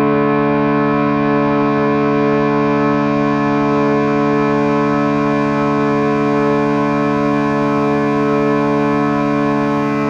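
Ambient meditation music tuned to 432 Hz: a sustained drone chord of many held tones, with no beat and no change in loudness.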